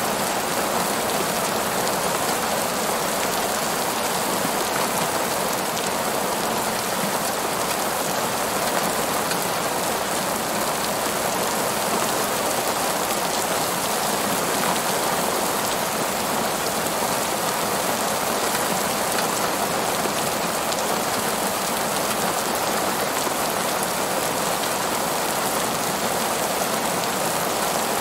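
Heavy rain falling steadily on a parking lot, an even hiss that neither builds nor fades.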